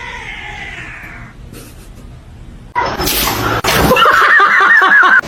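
A cat's drawn-out meow falling in pitch. About three seconds in comes a sudden loud burst of noise, then a louder wavering, warbling yowl.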